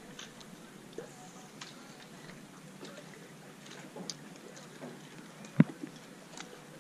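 Handling noise in a small fishing boat: scattered light clicks and taps, with one sharp knock about five and a half seconds in.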